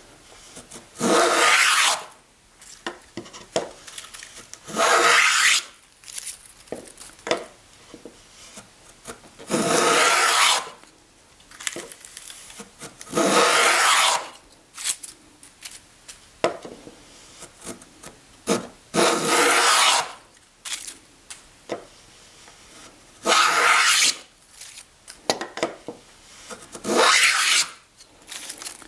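Wooden molding plane cutting a profile in a wooden board: seven strokes of about a second each, a few seconds apart, each a rasping hiss as the iron takes a shaving. Small knocks come between strokes as the plane is set back at the start of the cut.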